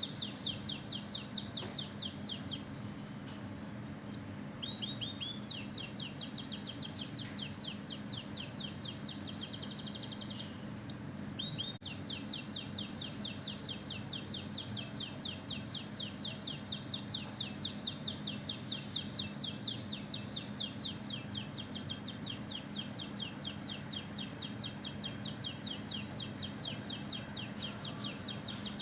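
Oriental magpie-robin (kacer) singing long, fast trills of repeated high notes, about six a second, in imitation of canary song. The trills are broken twice by short rising whistles.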